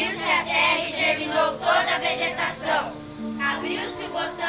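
Group of schoolchildren singing together in unison, over a few held accompanying notes. The singing is strongest for the first three seconds, then dips and carries on more softly.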